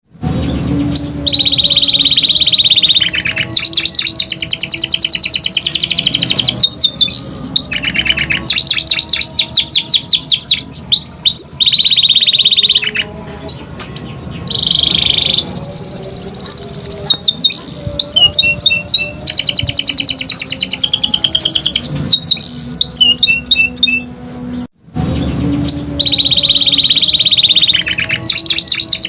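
Domestic canary singing a long, continuous song of fast trills and rolls mixed with short rising whistle notes, one phrase after another. The song breaks off for a moment near the end and picks up again.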